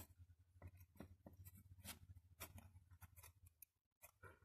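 Faint, irregular small clicks and snips of a small hand cutting tool working at a part, very quiet overall.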